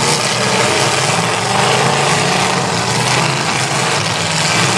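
Demolition derby car engines running loudly together in a dense, steady din.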